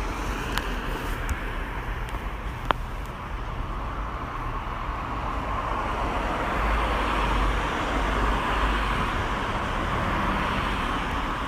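Road traffic: cars passing along a street, a steady wash of tyre and engine noise that swells as a vehicle goes by about seven seconds in. A single sharp tick sounds a little under three seconds in.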